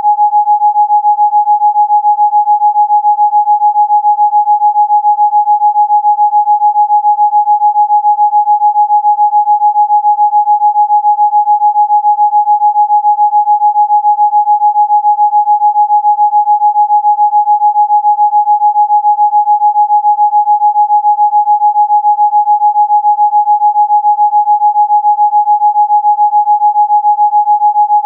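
A single electronically generated pure tone, a Rife frequency for chicken pox, held at one steady mid pitch and pulsing quickly and evenly in loudness.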